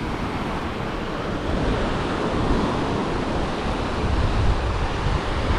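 Low surf breaking and washing up a sandy beach in a steady rush, with wind rumbling on the microphone.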